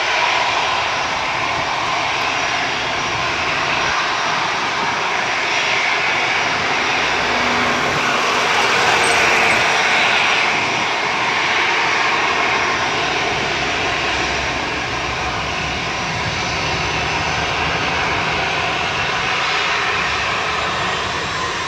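Airbus A310-304 airliner's General Electric CF6-80C2 turbofans running as it touches down and rolls out along the runway, a steady loud jet roar that swells for a few seconds about eight seconds in.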